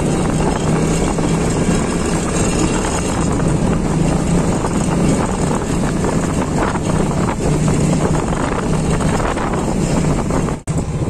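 Motorcycle engine running while riding, with wind buffeting the microphone. The sound drops out for an instant near the end.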